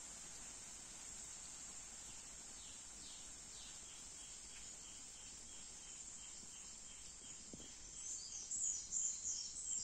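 Outdoor nature ambience: a steady, high-pitched insect drone with birds chirping over it. Short falling chirps start about a third of the way in, and a louder run of quick chirps comes near the end.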